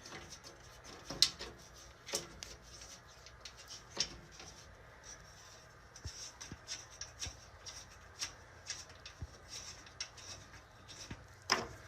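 Irregular light clicks and taps of small metal screws and steel frame parts being handled as screws are started into a metal box spring frame.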